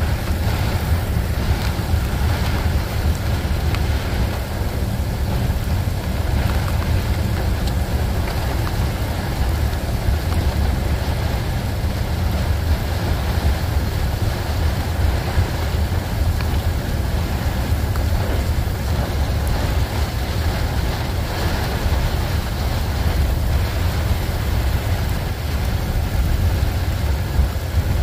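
Steady low rumble of a long freight train of tank cars rolling past, mixed with the rush of heavy rain and wind.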